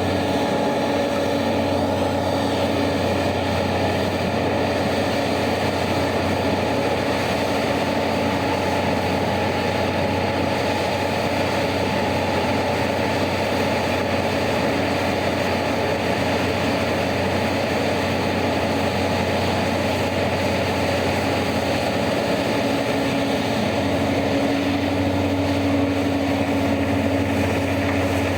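Large diesel engines of heavy mining machinery (an excavator loading a haul truck) running steadily as a constant low drone, with a slight shift in engine note about three-quarters of the way through.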